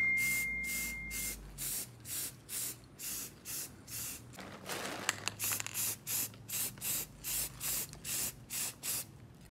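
Aerosol spray-paint can hissing in short, quick squirts, about three a second, as a coat of silver paint goes onto an engine casing. A faint high steady tone sounds in the first second.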